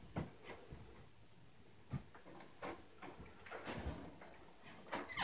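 Faint, irregular knocks and thumps from the apartment upstairs, a few each second or two, which the resident takes for the upstairs neighbors stomping. The loudest thump comes at the very end.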